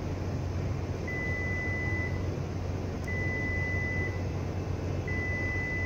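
Electronic alarm beeping from a marine radar console: a steady high tone about a second long, sounding three times, one every two seconds. A steady low hum runs underneath.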